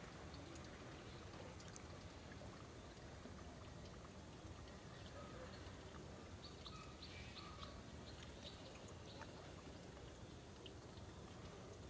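Faint, steady outdoor background hiss, with a few faint short high chirps around the middle.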